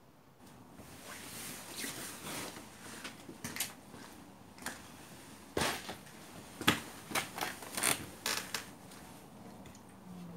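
Clothing rustling and handling noise as a person moves about and sits down, with a string of sharp knocks and clicks that are loudest about halfway and two-thirds of the way through.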